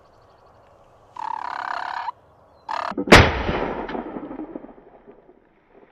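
A wild turkey gobbler gobbles for about a second, gives a second short burst, then a single loud shot from a muzzleloading shotgun about three seconds in, its echo fading over a second and a half.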